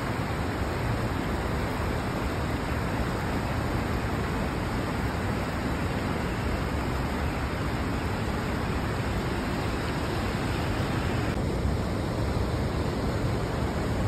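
River water rushing over rapids: a steady, unbroken rush of water. The higher hiss dulls slightly about eleven seconds in.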